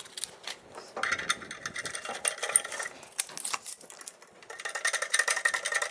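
Rapid metallic ticking and rattling, in two runs with a pause between, as the sliding table's threaded support leg is screwed in or out to set its length.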